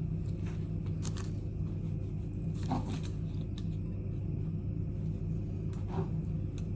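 Steady low hum, with a few soft knocks and taps of cake pieces and a utensil against a bowl.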